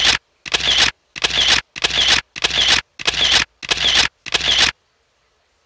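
A camera-shutter sound effect repeated in a steady series, seven times about 0.6 s apart, each one a short burst of noise, then stopping a little before the end.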